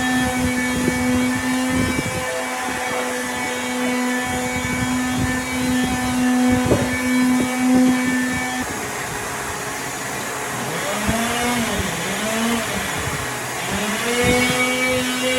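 Electric power tool motor running at a steady pitch, with scattered knocks. About halfway through, its pitch dips and recovers several times, as a motor does when loaded by the work, then settles back to steady.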